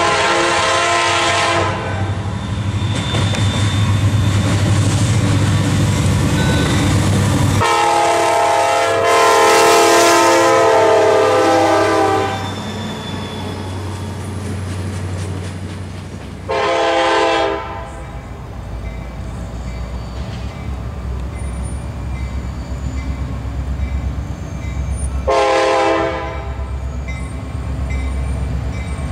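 Diesel freight locomotive's air horn sounding four blasts: a long one at the start, a longer one about eight seconds in, and two short ones later. Heavy engine rumble as the locomotive passes in the first few seconds, then the steady rolling and clatter of the freight cars' wheels on the rails.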